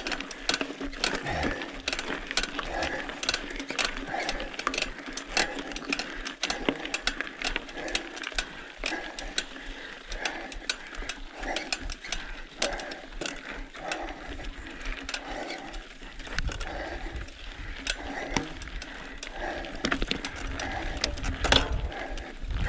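Mountain bike descending a rough mountain trail: dense, irregular clicking and rattling from the bike as it runs over the ground. From about two-thirds of the way through, a low rumble of wind buffets the microphone.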